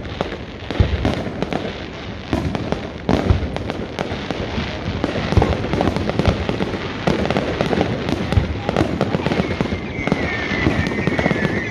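Fireworks display: aerial shells bursting one after another, with irregular sharp bangs over continuous crackling. A high wavering whistle joins near the end.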